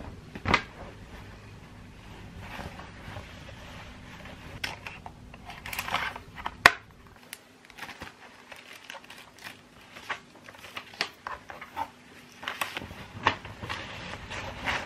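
Hand-handling sounds of packing a bag: a clear zip-lock plastic bag of pens crinkling, and papers and a canvas tote bag rustling. Scattered clicks and knocks on a table run through it, the sharpest about halfway through.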